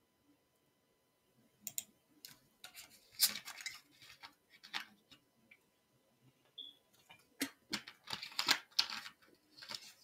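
Quiet, irregular clicking of a computer keyboard and mouse, a quick run of clicks starting about a second and a half in.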